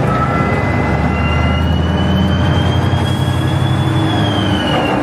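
Small boat's engine running steadily with a low rumble, with a thin whine that rises slowly and falls away about four seconds in.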